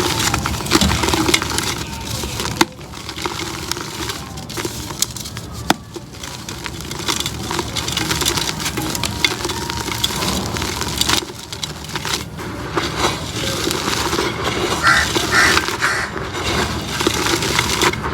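Pink concrete pot being crumbled by hand, with continuous gritty crunching and many small cracking snaps.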